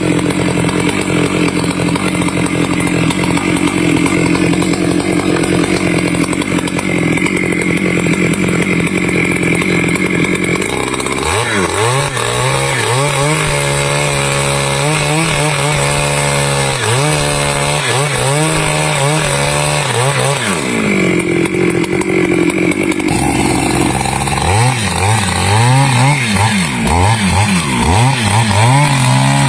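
Stihl chainsaw running at high revs for about ten seconds. It then drops to a lower, wavering note with repeated throttle blips for about ten seconds, revs up briefly, and goes back to uneven revving near the end.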